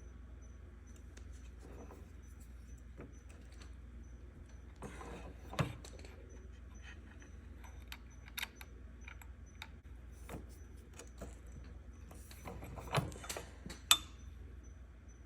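Small metal objects clinking and being handled, with scattered light taps and a few sharper knocks about halfway through and near the end.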